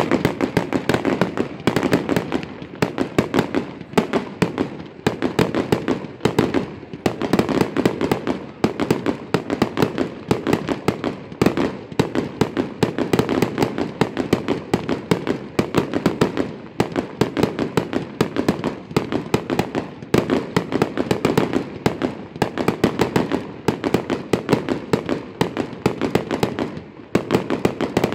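Fireworks display going off in a continuous rapid barrage of bangs and crackles, many reports a second, with no pause.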